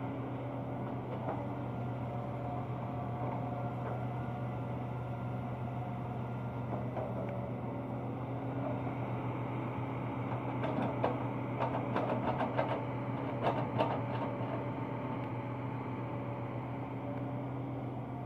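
Hitachi Zaxis 210 hydraulic excavator's diesel engine running steadily under load. Past the middle comes a spell of knocks and clatter as a bucketful of earth is swung over and dropped into a dump truck.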